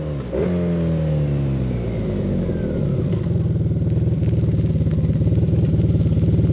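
1987 Honda Super Magna VF750C's V4 engine approaching at road speed. Its note falls over the first second or so, then settles into a steady pulsing run that grows louder as the bike draws near.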